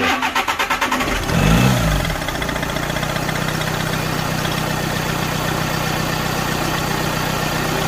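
A VW Crafter's 2.0 four-cylinder diesel engine is cranked on the starter, catches about a second and a half in with a brief rise in revs, then settles to a steady tick-over.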